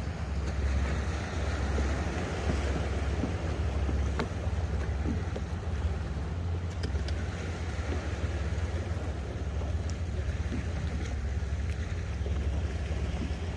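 Wind rumbling on the microphone over water sloshing against a kayak at sea, with a few faint clicks.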